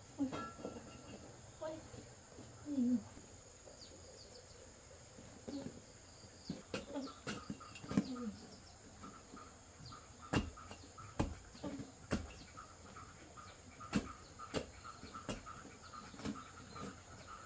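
Faint insect chirping in a steady pulse, about three chirps a second, with scattered sharp clicks and knocks and a few short low calls.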